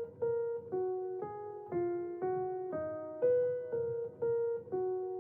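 Background music: a simple melody picked out on piano, one note at a time, about two notes a second, each note fading before the next.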